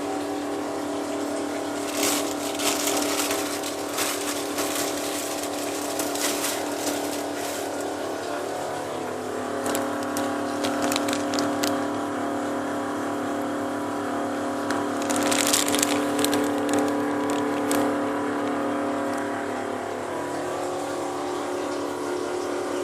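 Vaillant ecoTEC 837 combi boiler making an abnormal droning hum of several steady tones, which shift in pitch about nine seconds in and again near the end. Two spells of crackling hiss ride over it. The noise comes on when hot water is drawn or the heating fires.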